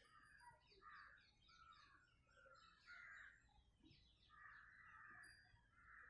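Faint birds calling in the background: many short chirps overlapping with longer, harsher calls.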